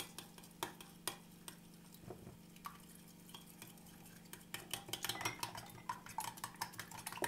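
Metal spoon stirring and beating eggs, oat flakes and milk in a glass bowl, clinking against the glass. The taps are scattered at first and come quicker and more steadily from about halfway through.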